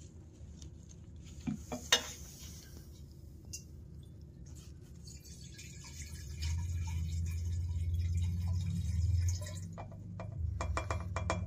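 Dirty water and sediment held back by a Mr. Funnel fuel-filter funnel being poured out of the tipped funnel into a glass jar, a steady pour from about six seconds in that eases off near ten seconds. Handling clicks of the plastic funnel, one about two seconds in and a few against the glass near the end.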